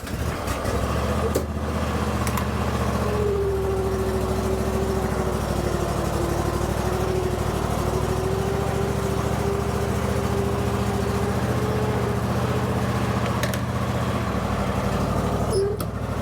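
Scag Freedom Z zero-turn mower's engine running steadily as the mower is moved. A steady whine sets in about three seconds in and stops near the end.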